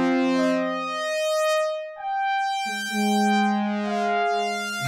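Korg DW-8000 synthesizer playing two held chords on a patch with a long release, the second coming in about two seconds in. Each chord brightens and then mellows as its filter opens and closes.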